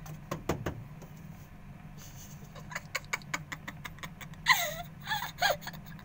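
Cat meowing inside a top-loading washing machine drum. A loud meow falls in pitch about four and a half seconds in and is followed by two shorter cries, after a run of light clicks.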